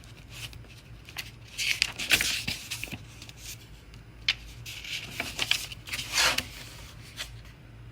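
Book pages being handled and turned: paper rustling and rubbing in several short bursts, with a few light clicks, over a faint steady hum.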